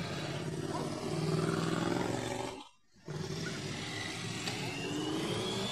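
Motorcycles riding past one after another, engines running, with one engine rising in pitch as it accelerates away in the second half. The sound drops out for about half a second near the middle.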